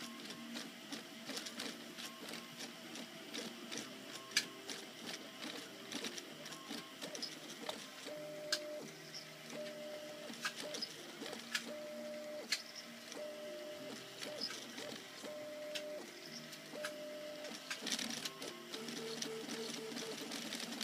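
Stepper motors of a RepRap Mendel 3D printer whining as the print head and bed move, the tones stepping between pitches and switching on and off with each short move. Occasional sharp clicks sound over the motors.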